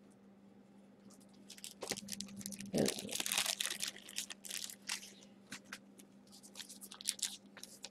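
Foil trading-card pack wrapper crinkling and crackling as it is handled, in a quick run of crackles that is busiest about three seconds in and then thins out.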